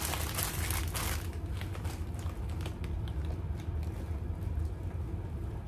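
Plastic snack bags crinkling and rustling as they are handled, densest in the first second or so, then thinning to scattered small crackles. A steady low hum runs underneath.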